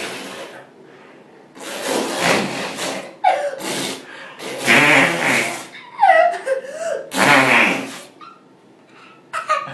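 A small child blowing wet, spitty raspberries: about five spluttering fart noises made with the lips, with giggling between them.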